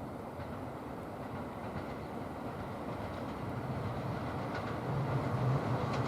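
381 series Yakumo limited express electric train approaching, its rail rumble growing steadily louder, with a low hum coming in about halfway through and strengthening.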